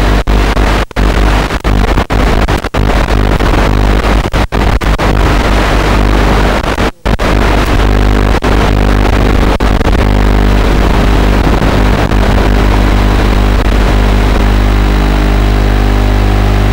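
Loud steady electrical buzz and static hiss on the audio channel of an analog 5.8 GHz FPV video link, with no change in pitch. It cuts out briefly about ten times in the first ten seconds, the longest gap about seven seconds in, as the signal breaks up.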